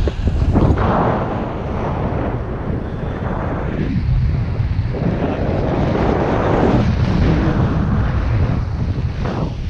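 Rushing airflow buffeting the camera's microphone during a tandem paraglider flight, swelling in gusts about a second in and again midway.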